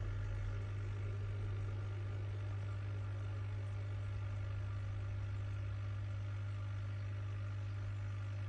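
Steady low hum of an aquarium pump, with fainter higher tones above it.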